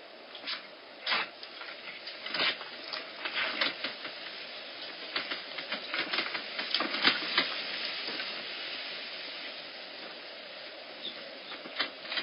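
Bobcat kittens pawing and scratching at an enclosure door: irregular sharp clicks and scrapes, busiest for the first eight seconds, easing off, then a few more near the end. Under them runs the steady hiss of a security camera's microphone.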